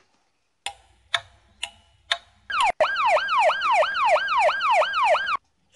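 A clock ticking: four ticks about half a second apart. Then an ambulance siren sound effect wails, its pitch rising and falling quickly about three times a second, and cuts off abruptly near the end.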